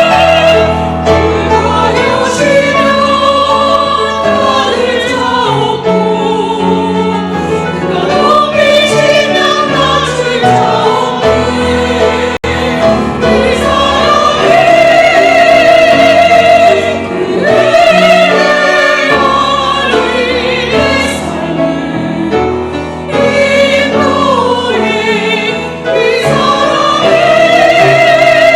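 Church choir singing a hymn in sustained, vibrato-rich phrases over piano accompaniment.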